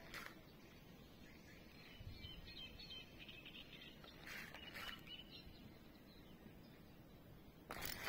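Quiet pond-side ambience with faint bird chirps and a few soft clicks. A louder noise begins just before the end.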